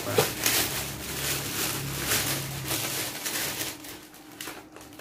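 Clear plastic packaging crinkling and rustling as it is handled and opened, with many quick crackles, dying down for the last second or two.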